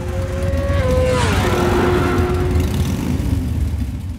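Motorcycle engine sweeping past, its pitch dropping about a second in as it goes by, then fading out near the end.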